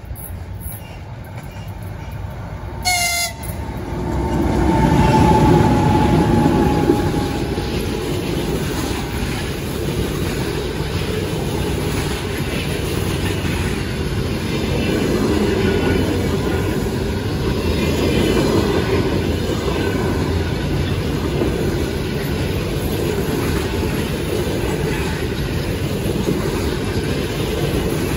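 EP20 electric locomotive sounds a short horn blast about three seconds in, then it and its train of passenger coaches pass close by at speed. The loud, steady noise of wheels on the rails swells as the locomotive goes by and carries on as the coaches roll past.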